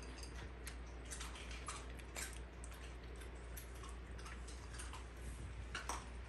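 A dog eating dry kibble from a bowl: irregular crunching and clicking, several times a second, over a steady low hum.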